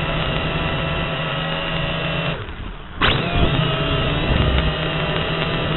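Quadcopter's electric motors and propellers buzzing steadily, picked up by its onboard camera. About two seconds in the sound falls away for under a second, then comes back abruptly with a sharp click and a slightly higher whine.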